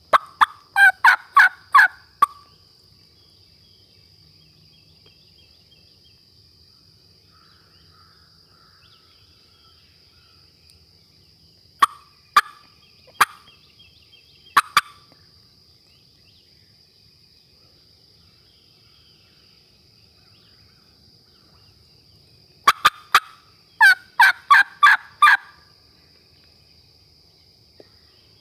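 Turkey yelping: a loud run of about eight yelps at roughly four a second, then a few single clucks spaced apart, then a second run of yelps near the end.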